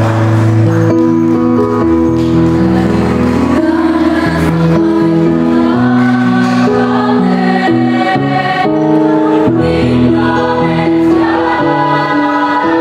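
Mixed student choir singing in harmony, holding long chords that shift every second or two.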